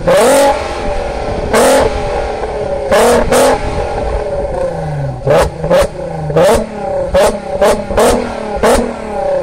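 Volkswagen Golf R32 Mk5's 3.2-litre VR6 revved in short blips from idle through a custom exhaust of KWE headers, test pipes in place of the catalytic converters and a middle muffler. About ten quick revs, each falling back to idle, coming closer together in the second half.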